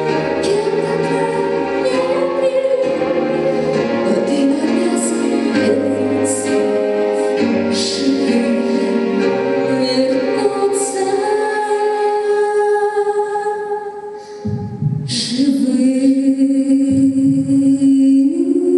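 Music: a woman singing long held notes over musical backing, with a brief drop in level about fourteen seconds in before a new held note begins.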